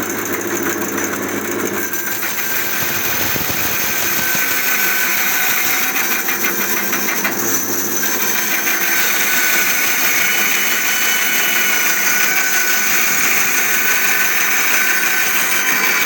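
Homemade band sawmill with 406 mm rubber-covered wheels running and sawing through a small log with a 35 mm sawmill band, a steady loud noise that grows a little louder after about two seconds as the blade bites. The owner finds the machine does not slow under the load.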